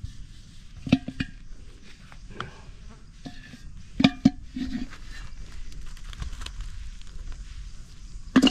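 Chopped buffalo leg bone and meat chunks being put into a large metal cooking pot, each landing with a knock and a short metallic ring. There are several knocks, the loudest about a second in, about four seconds in and near the end.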